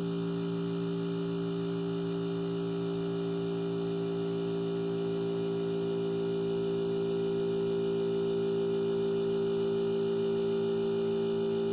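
Harvest Right freeze dryer's refrigeration compressor running with a steady hum, getting slightly louder about halfway through.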